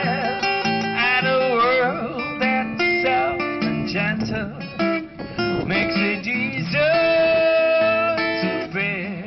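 Live acoustic music: an acoustic guitar strummed under a man singing into a microphone, who holds one long note near the end.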